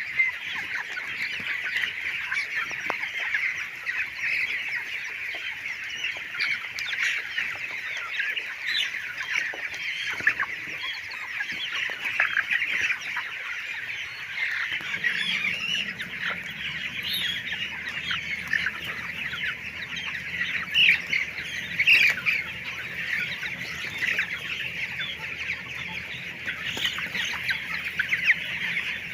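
A large flock of chickens in a poultry shed, many birds clucking and chirping at once in a continuous dense chatter. A faint low steady hum joins about halfway through.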